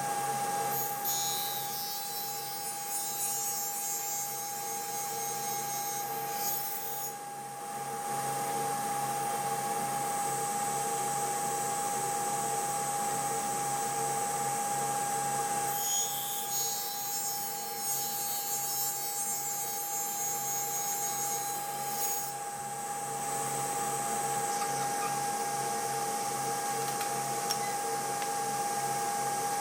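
Power tool motor running steadily with a high whine. Twice it takes on a harsher high-pitched edge for about six seconds, about a second in and again about sixteen seconds in, as it works the wood.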